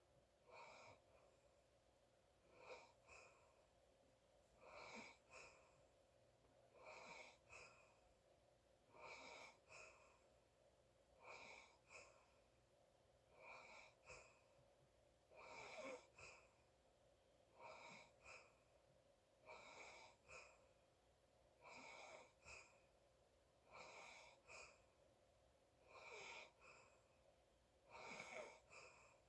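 Quiet, steady snoring breaths of a sleeper, one breath about every two seconds, each breath in two short parts.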